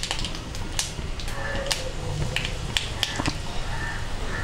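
Mustard seeds and urad dal frying in hot oil in an aluminium kadai: a steady sizzle with irregular sharp pops as the mustard seeds splutter.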